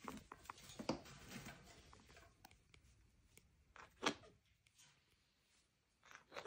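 Scarlet macaws shifting and flapping their wings on a wooden perch: faint rustling and scuffling in short spells, the loudest flutter about four seconds in.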